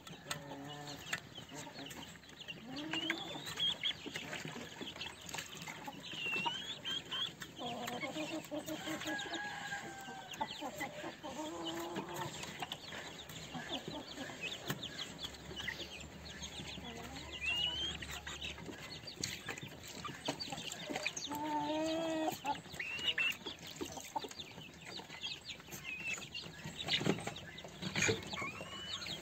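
Young lavender Cochin chickens clucking and peeping as they feed, with low clucks and higher rising peeps scattered through, and short clicks of beaks pecking at feed in a bowl.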